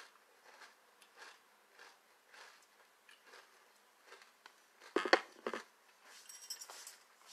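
A person chewing a mouthful of crunchy cereal in milk, with soft crunches about every half second. Two sharper knocks come about five seconds in.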